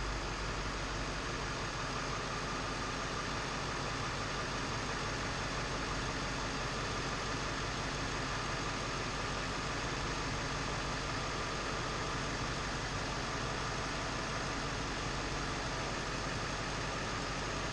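Ford 7.3 L Power Stroke turbo-diesel V8 idling steadily, running on its first start after a Hydra performance chip was fitted to its PCM.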